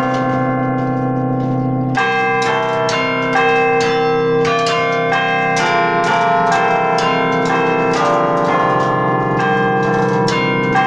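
An 18-bell carillon played from its baton keyboard, its bells ringing out a tune. For about the first two seconds earlier notes ring on with few new strikes, then the bells are struck in quick succession, each note ringing on under the next.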